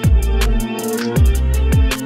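Electronic background music with a heavy beat: deep bass hits that slide down in pitch, over fast ticking hi-hats.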